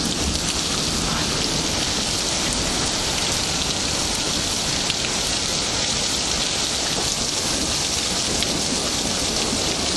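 Thunderstorm rain falling steadily: a dense, even hiss with scattered drop ticks and a low rumble beneath.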